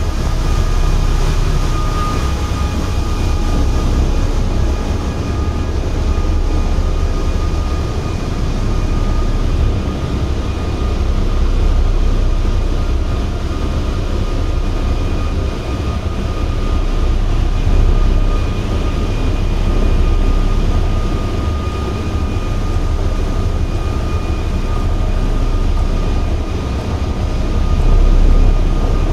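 Rail cart rolling along the steel rails of a ship's pipe duct: a loud, steady rumble from its wheels, swelling and easing a little as it goes, with a faint steady whine above it.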